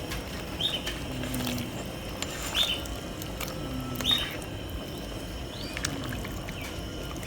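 A bird chirping in short high notes, repeated about every second or so, over a faint steady background.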